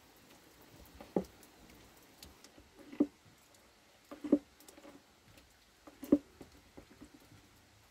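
Gear oil being pumped through a filler tube into a Toyota Hilux Surf differential: a few short wet squelches and pops as oil and air spurt through the pipe, the loudest about three, four and six seconds in, with the diff now near full.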